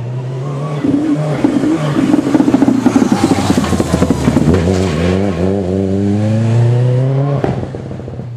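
Subaru Impreza rally car's turbocharged flat-four engine passing close at speed, then accelerating hard away with its pitch climbing steadily. The engine note cuts off abruptly about a second before the end as the driver lifts off.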